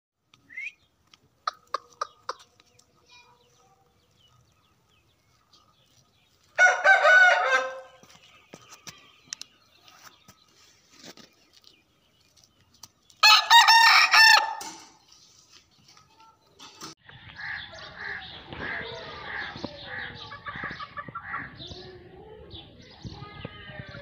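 Aseel rooster crowing twice, each crow about a second and a half long and some six seconds apart, with a few sharp clicks before the first. About two-thirds of the way in a steadier, busier background sound takes over.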